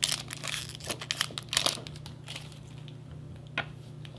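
Foil wrapper of a Magic: The Gathering booster pack crinkling and tearing as it is opened, in a quick run of crackles over the first two seconds, with one more crinkle near the end.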